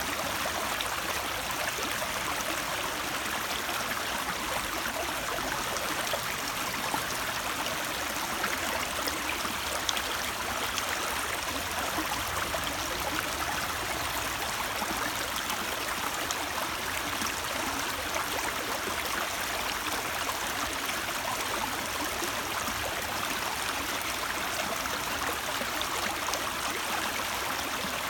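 Water of a stream flowing steadily, a continuous even rushing.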